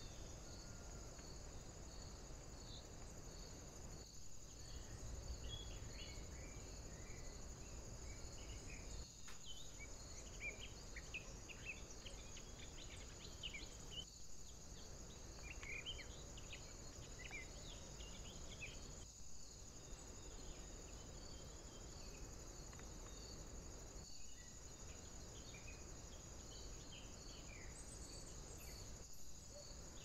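Faint woodland ambience: a steady high-pitched hiss with a regular pulse running through it, scattered short distant bird chirps, and a low rumble underneath. The sound briefly dips about every five seconds.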